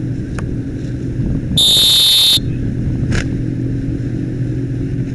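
A loud, high-pitched whistle blast lasting under a second, about a second and a half in, the umpire's sound signal given with a penalty flag. Under it, the outboard motor of the inflatable umpire boat runs steadily.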